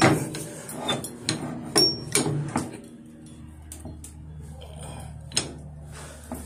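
Steam locomotive's cast-iron butterfly firehole doors and their lever being worked by hand: a quick string of sharp metal clanks and knocks over the first couple of seconds, then quieter, with one more knock about five seconds in.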